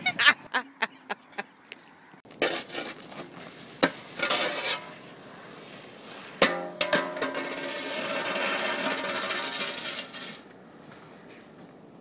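Metal snow shovel scraping across an icy, sleet-covered driveway in short strokes, then a hard clatter about six seconds in as the shovel and the man go down on the ice, followed by several seconds of steady scraping.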